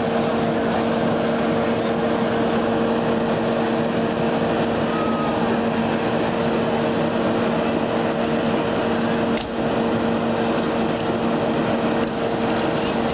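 Hydraulic power unit for Hurst rescue tools running at a steady speed: a constant engine drone with a steady hum. One brief knock a little past the middle.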